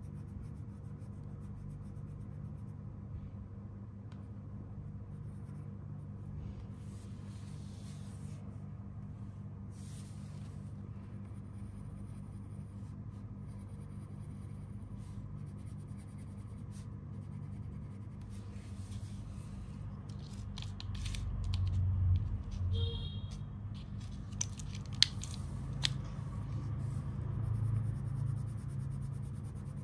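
Wax crayon scratching on paper in short strokes as areas are coloured in, over a steady low hum. A few sharp clicks and bumps come about three-quarters of the way through, as a green crayon is swapped for a pink one.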